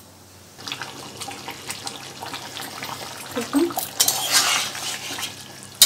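A metal spatula stirring and scraping through a liquid chicken-and-potato curry in a large metal kadai, with light clinks against the pan. The stirring grows louder about four seconds in.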